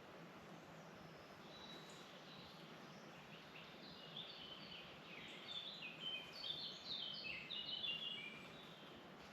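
Songbird singing in a forest: a quick run of short, high notes, loudest from about four to eight seconds in, over a faint steady hiss.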